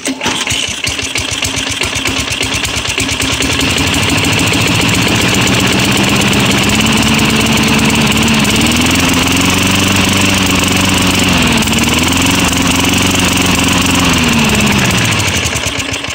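Craftsman push mower's 4.5 hp Tecumseh engine catches right at the start and runs loudly. In the second half its speed wavers, dipping twice, then it slows and dies near the end.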